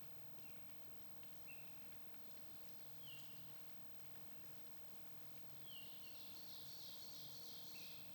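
Small songbirds calling faintly over a steady hiss of background noise: short falling chirps every second or two, then a dense buzzy trill for the last couple of seconds.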